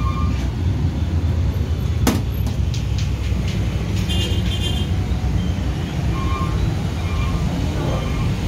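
Steady low rumble of restaurant background noise, with a single sharp click about two seconds in.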